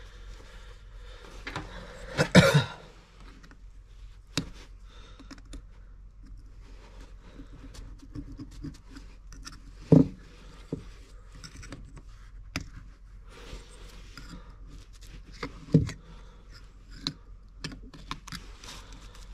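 Small clicks, taps and scrapes of metal carburetor parts being handled and pried apart on a paper-towel-covered bench as the stuck fuel-pump diaphragm is peeled off. A few sharper knocks stand out, the loudest about two seconds in.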